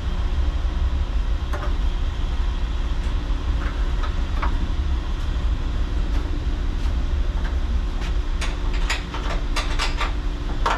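Steady low machine hum, with a few light clicks, then a quick run of sharp metallic clanks about eight seconds in as the steel door of a Viking shot blast cabinet is swung shut and its latches are clamped down.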